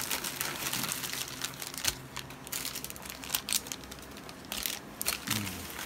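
Plastic ration packets rustling and crinkling as they are handled and laid out on a wooden table, with scattered light clicks and taps.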